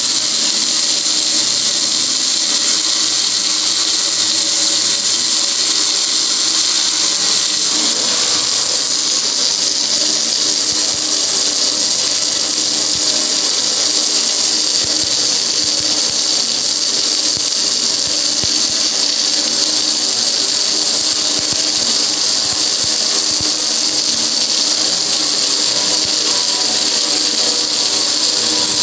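Garden hose nozzle spraying a steady jet of water onto a metal gas grill, an even high hiss with water splashing off the lid and running down the front.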